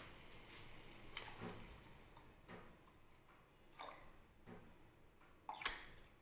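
Faint, irregular popping and ticking of tea boiling in a steel pot. A louder splash near the end as milk starts pouring in.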